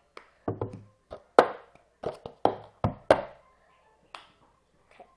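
Hand claps and a plastic cup tapped and knocked on a tabletop in the cup song rhythm: about a dozen sharp strikes in quick succession over the first three seconds, then a couple of softer taps near the end.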